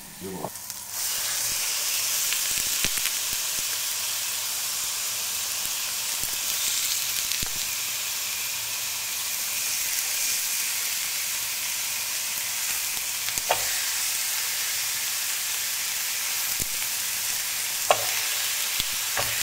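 Raw bone-in lamb pieces sizzling in a hot oiled grill pan as they are laid in by hand. The steady hiss starts about a second in, with a few sharp pops, two of them near 13 and 18 seconds.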